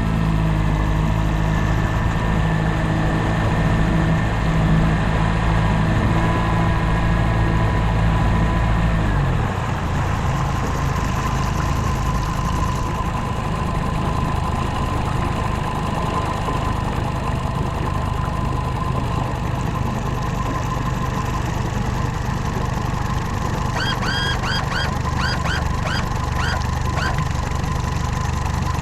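New outboard motor running during break-in, its low engine note dropping back about nine seconds in, with a thin steady tone above it. A string of short high chirps comes near the end.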